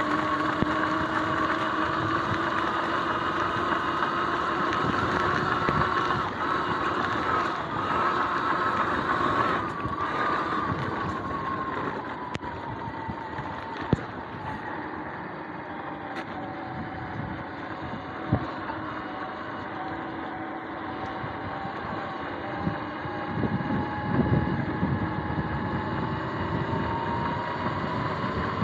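Sur-Ron X electric dirt bike's motor whining under way, its pitch rising slowly, falling away after about ten seconds and climbing again near the end, over a steady rushing noise. A couple of sharp knocks and a few low thumps come through as it rides.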